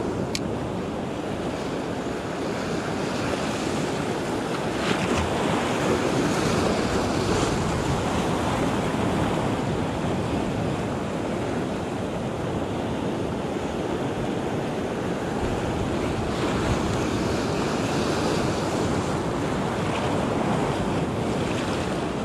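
Sea surf breaking and washing around close by, a steady rushing of foaming water.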